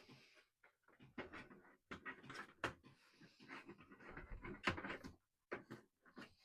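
A PC case's side cover being worked back into place: faint irregular scraping, rustling and a few sharp clicks and knocks of the panel against the chassis.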